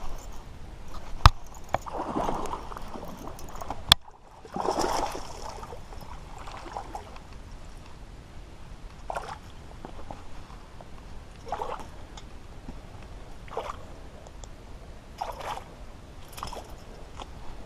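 Water sloshing and splashing close by, in short swishes every second or two, with two sharp clicks a few seconds apart near the start.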